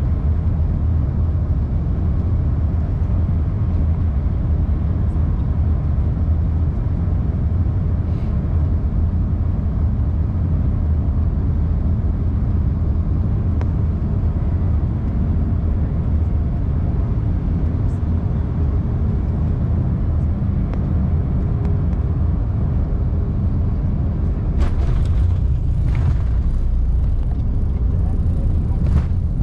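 Steady low rumble of an airliner cabin on final approach. About 25 seconds in come a few sharp knocks as the wheels touch down on the runway, and then the rumble grows slightly louder with a thin high whine.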